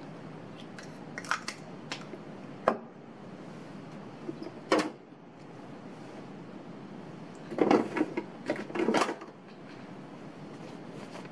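Scattered light clicks and clinks from handling a small lipstick tube and a wristwatch, over a steady low hiss, with a brief cluster of clatter about eight seconds in.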